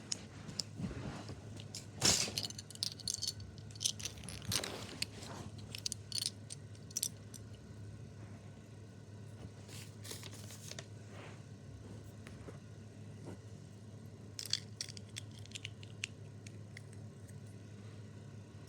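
Small plastic Lego minifigure pieces clicking and rattling, with crinkling of the plastic blind-bag wrapping, in scattered bursts that are busiest in the first few seconds and again around the middle and about fifteen seconds in. A steady low hum runs underneath.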